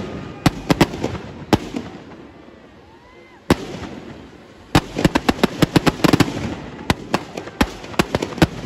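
Firecrackers packed inside a burning Ravan effigy going off: a few sharp bangs in the first second and a half, a lull, then from about five seconds in a rapid, dense string of cracks.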